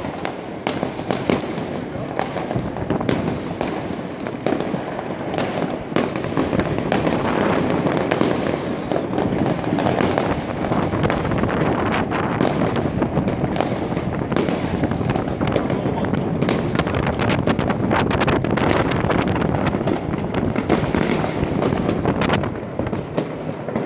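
Many fireworks and firecrackers going off across a town at once: a continuous din of distant bangs with frequent sharper cracks on top.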